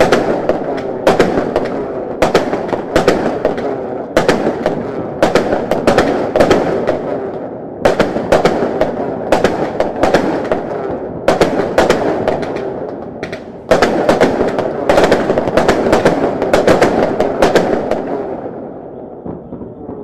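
Fireworks crackling and popping in dense volleys, with fresh loud bursts about eight and fourteen seconds in, fading out near the end.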